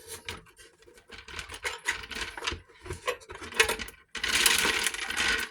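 Metal clock movement parts and chain clinking and rattling as they are handled, ending in a loud continuous rattle for about the last second and a half.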